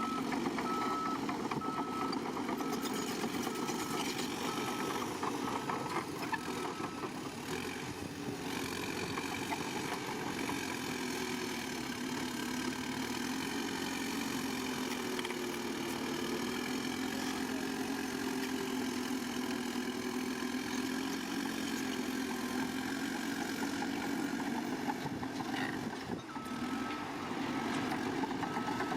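A diesel engine of a heavy construction machine running, its pitch rising and falling in the middle as the engine works, with a reversing alarm beeping about twice a second for the first several seconds and again near the end as a vehicle backs up.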